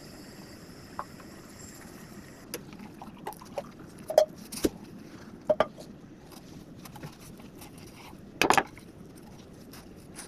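Kitchen utensils knocking and clinking against dishes and pans: a dozen or so separate sharp knocks, the loudest two about four and five and a half seconds in with a short ring, and a quick cluster of knocks near the end.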